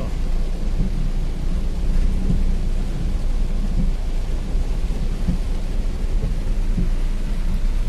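Steady, deep rushing of floodwater pouring over a stream bank in a torrent, mixed with heavy rain.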